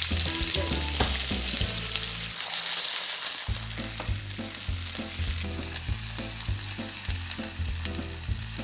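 Wet raw potato sticks frying in hot olive oil in a frying pan, with a steady sizzle throughout.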